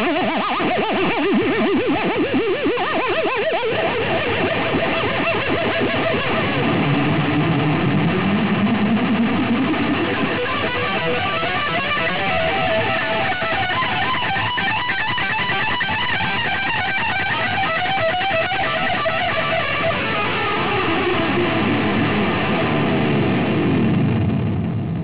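Electric guitar playing lead lines in a continuous piece of music, with long sliding pitch glides, beginning to fade out at the very end.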